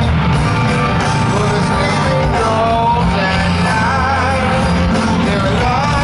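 Live heavy metal band playing at full volume: a male voice singing over electric guitar and drums.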